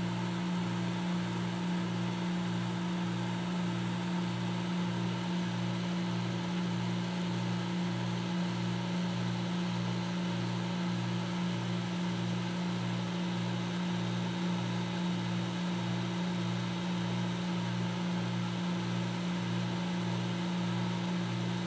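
Cooling fan of a Dahua PoE network video recorder running: a steady whirring drone over a low hum that pulses about twice a second. It is really loud for such a unit.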